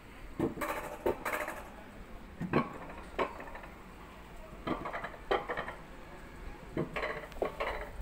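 Alpine coaster cart clanking and rattling along its tubular steel rail track: a string of irregular sharp metallic clanks over a low rumble.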